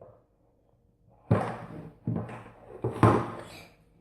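Hard plastic toy parts knocking together or against a tabletop as the action figure is fitted into its suit: three sharp knocks, about a second apart, the last the loudest.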